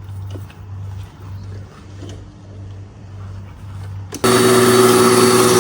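A 1200 W electric lawn mower's motor running loud and steady, cutting in suddenly about four seconds in. Before that, a low, uneven hum.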